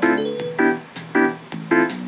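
MIDI music played by the Packard Bell PC's sound card synthesizer through its speakers: electronic keyboard chords in short repeated stabs, about two a second, with a few higher held notes over them.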